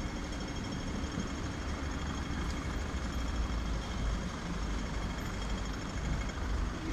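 Steady city street traffic noise: a low rumble of vehicle engines under a constant hiss.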